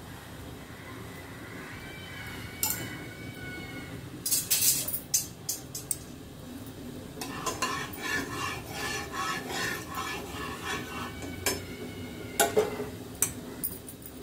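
Metal utensils clinking and scraping against cookware. A cluster of sharp clinks comes about four seconds in, a few seconds of stirring and scraping follow in the middle, and a few more clinks come near the end.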